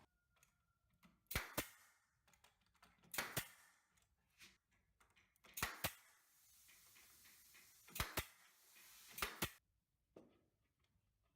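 Sharp knocks in quick doubles, five pairs about two seconds apart, with a faint hiss between the last two pairs.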